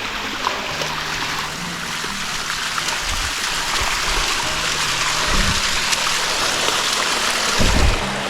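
Water rushing and splashing steadily down the waterfall's cascades, with a few dull low thumps, the loudest near the end.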